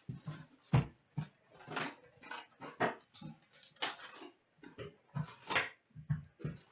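Rustling, crinkling and tearing of a trading-card box's shrink wrap and foil packs being opened by hand, in irregular short bursts with a few soft knocks.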